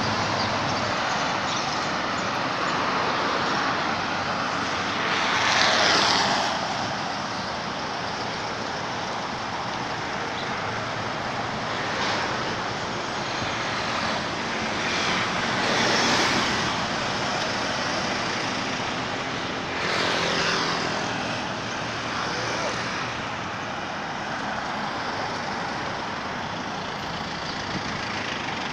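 Steady outdoor traffic noise, with vehicles passing by several times, each swelling up and fading over a second or two.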